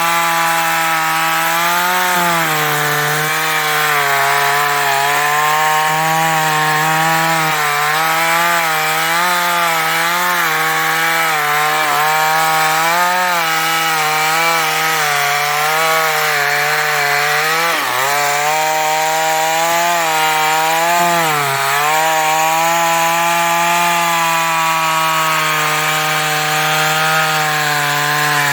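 New West 588 two-stroke chainsaw cutting through teak wood, its engine held at a steady high pitch that wavers as it works and sags briefly twice, about eighteen and twenty-one seconds in, as the chain bites.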